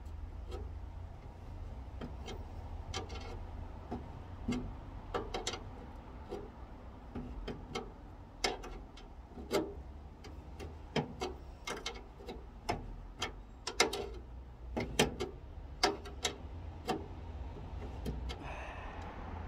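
Socket ratchet clicking in short, irregular runs as it is worked back and forth, tightening radiator mounting bolts. A low, steady rumble runs underneath.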